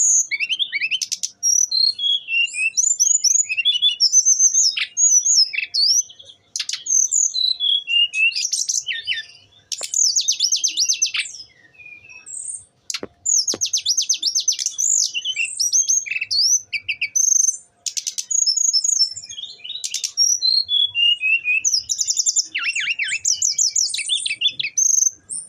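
Brown-chested jungle flycatcher singing a long, varied song of rapid trills and high falling slurs, almost without pause.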